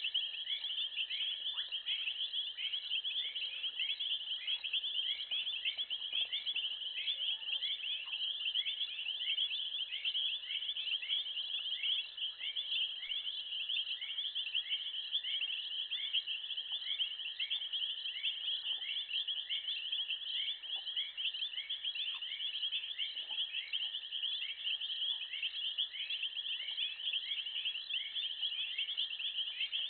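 Dense chorus of crickets chirping without a break, a couple of rising chirps a second, over a steady high drone.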